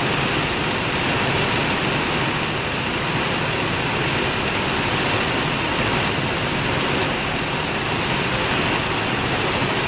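Go-kart engines running around an indoor track, heard as a steady wash of noise in a large hall with no single engine standing out.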